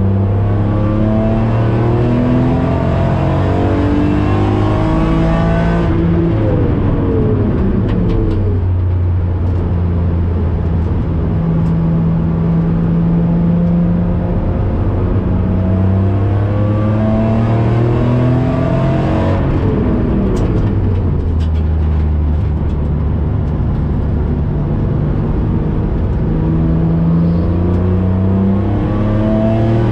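BMW E46 M3's straight-six engine, heard from inside the cabin, pulling hard on track with revs climbing; the revs fall away steeply twice, about six and nineteen seconds in, before climbing again.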